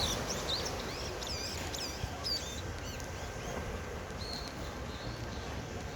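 A bird chirping in quick, curving notes through the first half, then giving a couple of short held whistles, over the steady wash of sea surf and wind.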